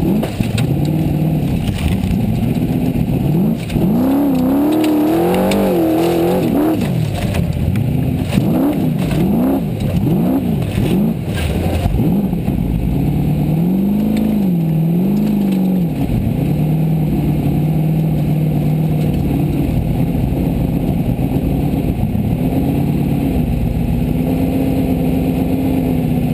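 A Formula Offroad buggy's engine heard from inside the car, its revs rising and falling quickly over and over, with knocks and rattles around the middle. It then settles into a steady, lower note as the car rolls slowly.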